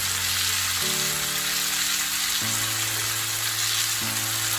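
Mackerel pieces frying in oil with tomato, onion and ginger, an even steady sizzle; light frying meant to take off the fishy smell.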